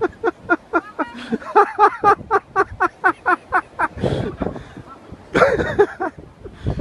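A person's voice in a fast run of short, even, pitched bursts, about five a second, for about four seconds, then two longer breathy bursts.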